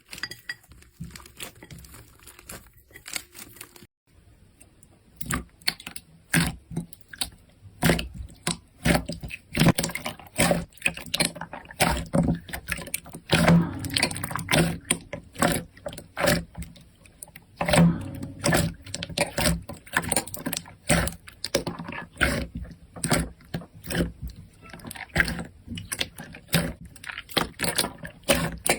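Slime being played with: a dense, irregular run of clicks and pops, louder and busier after a short break about four seconds in.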